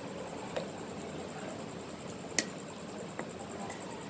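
A few light clicks of a utensil against a plate while mixing shredded chicken with mayo, the sharpest about two and a half seconds in, over a steady faint hiss and a thin high whine.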